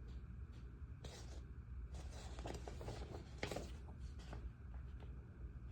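Faint rustling and light clicks of small parts and plastic screw bags being handled, over a low steady room hum.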